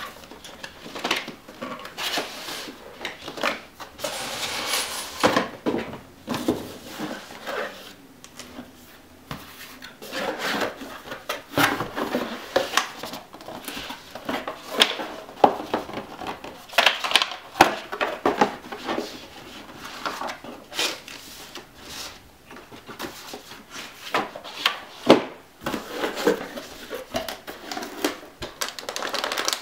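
Cardboard graphics-card packaging being handled: the inner box slid out of its sleeve and set down, then its lid opened, making a run of irregular knocks, taps, scrapes and rustles.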